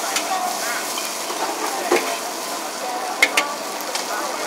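Char kuey teow, flat rice noodles with bean sprouts, frying with a steady sizzle in a large wok over a gas burner, stirred with a spatula. A few sharp metal clanks of the cooking tools come about two seconds and a little over three seconds in.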